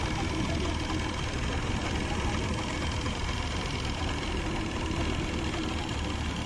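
Small fishing boat's engine running steadily.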